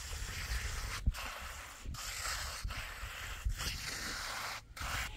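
Repeated rough scraping or rubbing strokes, about one a second, each a steady hiss broken by a brief pause.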